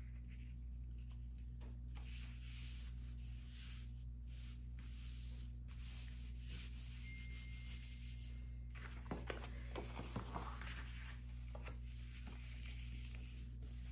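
Hands rubbing and pressing over a paper envelope, smoothing a freshly glued seam down; a soft papery swishing, with a few light taps about nine to ten seconds in.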